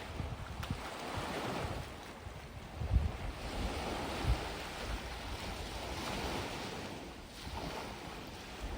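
Gentle sea waves washing onto a sandy beach, the surf swelling and easing in slow surges. Wind buffets the microphone now and then, most strongly about three seconds in.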